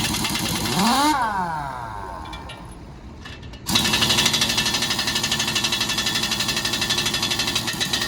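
Impact wrench working on truck wheel nuts. There is a short run with a whine that rises and then falls about a second in. From about three and a half seconds on it hammers in a steady, rapid rattle.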